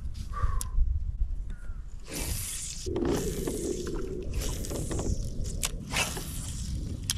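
Several short bouts of scraping and rubbing with a few sharp clicks, over a steady low rumble.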